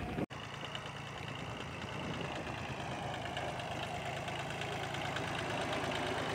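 Mini tractor's diesel engine running steadily under a heavy load of fodder, with a fast even chugging. The sound drops out for an instant just after the start.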